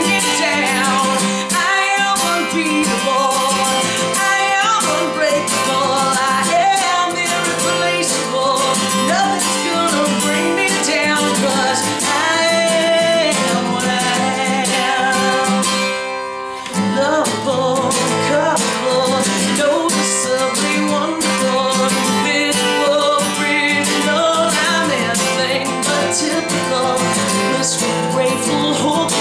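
A woman singing while strumming an acoustic guitar. The voice and guitar break off briefly a little past halfway, then carry on.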